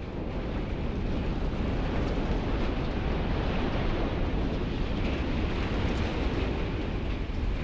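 Steady low rumbling roar of a demolition collapse and falling debris, with wind buffeting the microphone.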